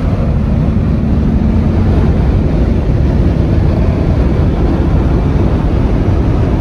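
Steady road, engine and wind noise from a car cruising at highway speed, heard from inside as a deep, even rumble.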